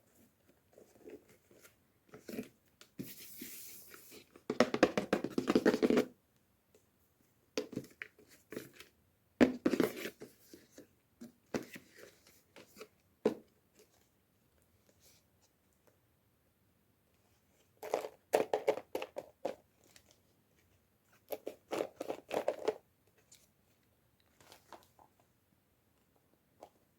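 Hands opening toy packaging: irregular bursts of tearing, scratching and crinkling, with quiet pauses between. The longest and loudest burst comes about four to six seconds in.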